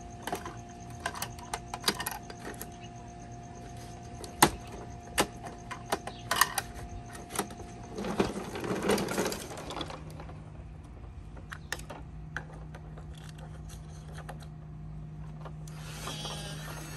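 Plastic toy garbage truck mechanisms clicking and knocking as the bin lifter is worked, with a rattling clatter about eight seconds in as the toy trash bin is tipped out. A steady low hum sets in after that, with a whirring stretch near the end.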